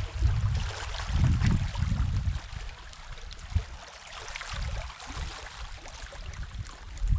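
Sea washing on the shore, a steady hiss, with low irregular gusts of wind rumbling on the microphone.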